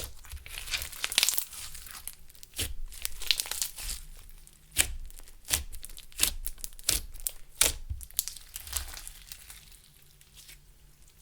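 Clear slime mixed with makeup and glitter being worked by hand, giving irregular sticky pops and crackles that thin out near the end.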